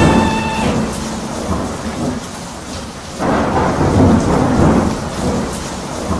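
Thunderstorm sound effect: a peal of thunder dying away, then a second loud rumble about three seconds in, over a steady rain hiss.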